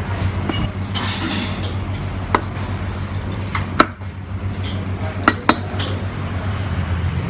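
Sharp knocks on a thick wooden chopping block as a cleaver and a roast chicken are handled on it. There are four knocks, the loudest near the middle and two close together later, over a steady low hum.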